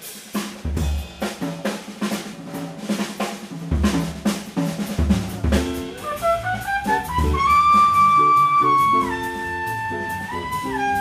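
Live jazz: drum kit playing with double bass notes underneath, then about six seconds in a trumpet enters with a rising phrase, holds a high note and steps down.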